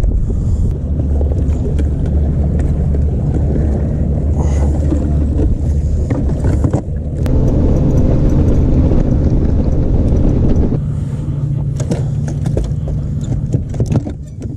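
Steady low rumble of wind on the microphone with a boat motor humming on a bass boat. The sound changes abruptly about seven seconds in and again near eleven seconds.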